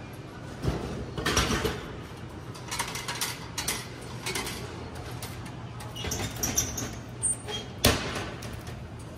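A series of clunks and knocks from a drink vending machine as a plastic bottle is dispensed and taken out past the flap of the bottom delivery slot, with the sharpest knock near the end. A steady low hum runs underneath.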